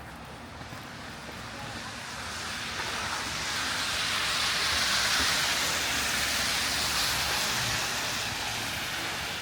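A vehicle passing on a snow- and slush-covered street: the hiss of its tyres swells to a peak about halfway through, then fades away.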